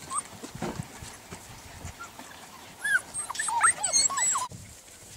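Golden retriever puppies whining in short, high, rising-and-falling cries, a few faint ones early and then a dense overlapping cluster about three seconds in, which breaks off suddenly near the end.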